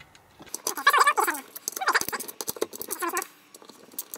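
Screws squeaking as they are turned out of a BMW 180 A alternator's housing with a hand tool: three short, wavering squeals about a second apart, among light clicks and knocks of the tool and metal parts.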